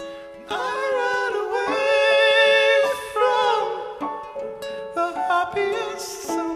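Live music: a man singing long held notes over piano and plucked strings. The voice comes in about half a second in and swells again near the end.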